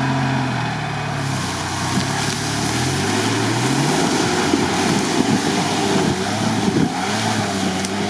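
Off-road 4x4's engine revving up and down as it churns through deep swamp mud, the tyres spinning and throwing mud and water.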